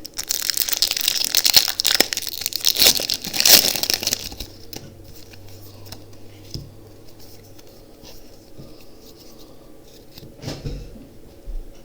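Foil wrapper of a Pokémon TCG booster pack being torn open and crinkled for about four seconds, followed by quieter handling with occasional soft rustles and clicks as the cards come out.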